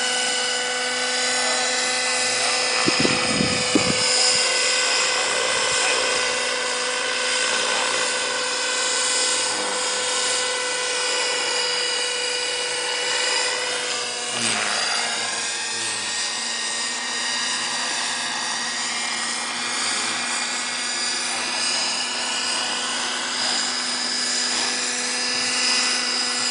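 Electric motors of radio-controlled model aircraft whining steadily, including an F6F Hellcat model with a 1000Kv motor and three-blade propeller. About halfway through, the pitch of the higher whine dips and rises again as the plane manoeuvres. There are brief wind bumps on the microphone a few seconds in.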